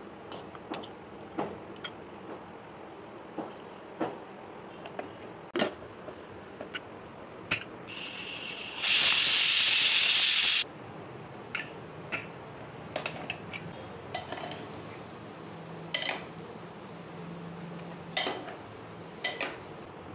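Clinks and knocks of marinated chicken and a plate against an aluminium TTK Prestige Popular pressure cooker. About 8 seconds in, the cooker whistles: a loud, steady hiss of steam venting under the weight valve, which lasts about three seconds and cuts off suddenly.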